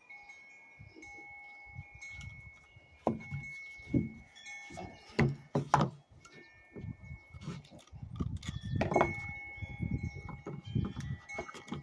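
Knocks, clunks and rustling from hands working on a small birdhouse with wire, sharpest about 3 to 6 seconds in and busiest near 9 seconds. Behind them, a few clear metallic tones ring on and hold.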